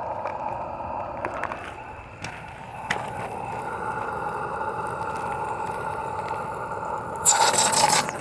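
Butane-fired Roundhouse Lady Anne live-steam gauge one locomotive running on its garden track: a steady mechanical running sound with scattered clicks from the wheels and motion. A brief loud rush of noise comes about seven seconds in.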